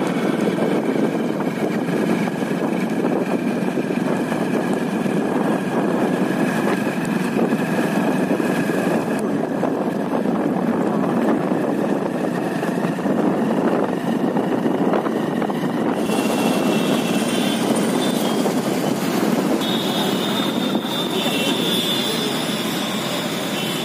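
Steady engine and road noise of a motorcycle being ridden along the road. The sound changes about two-thirds of the way through, and faint high steady tones join in near the end.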